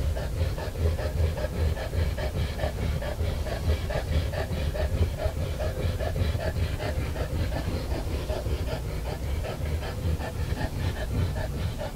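American Bulldog panting quickly and steadily through a basket muzzle, about three to four breaths a second, over a steady low rumble.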